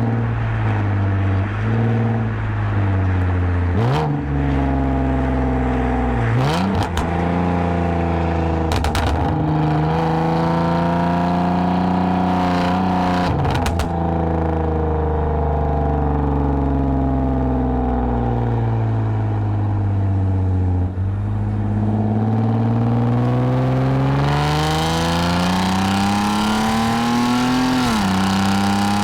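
2010 Lexus IS250 AWD's 2.5-litre V6 through a full aftermarket exhaust with valved mufflers, pulling through the gears: revs climb in long pulls, ease off and fall away, then build again, with a sudden drop at a gear change near the end. A few sharp clicks sound in the first half.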